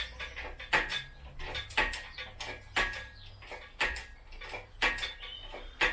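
Hand pump of a Sealey PH5 engine crane's hydraulic ram being worked, a sharp clack about once a second with each stroke of the handle and fainter clicks between. The freshly bled ram is now pumping up.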